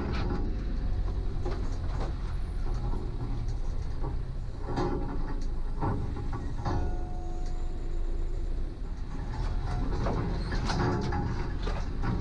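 Land Rover Defender crawling along a rutted green lane: a steady low engine rumble overlaid with repeated knocks and rattles from the body and suspension, and hedge branches scraping along its side.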